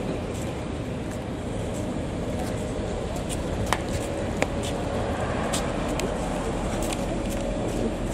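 Steady background rumble of road traffic, with two short sharp clicks about three and a half and four and a half seconds in.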